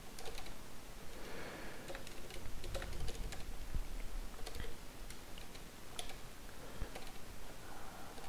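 Typing on a computer keyboard: irregular keystrokes with short pauses between bursts.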